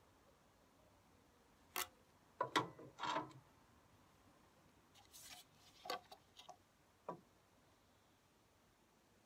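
A spirit level and a wooden straightedge knock and scrape against fresh brickwork as they are set against the face of a soldier course to check plumb and alignment. A sharp knock comes about two seconds in, then a cluster of knocks, a brief scrape about five seconds in, and a few lighter taps.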